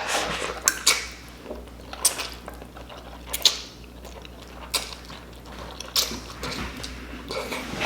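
Short, sharp, close-miked mouth noises while eating noodles without hands, one about every second and a half over a low steady hum.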